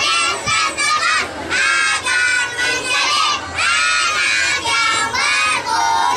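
A choir of young children singing loudly in unison, in short phrases with brief breaks between them.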